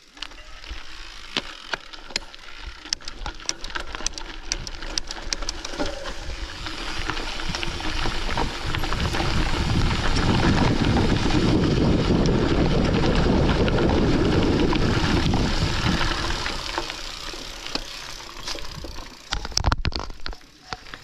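Mountain bike riding fast on a gravel forest road. Tyres crackle and rattle over loose stones, and wind rushing over the microphone builds as the bike gains speed, is loudest around the middle, then eases toward the end.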